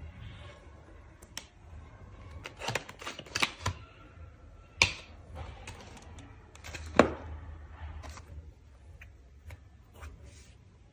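Irregular clicks, taps and rustling of packaging and items being handled during an unboxing, with two sharp knocks about five and seven seconds in.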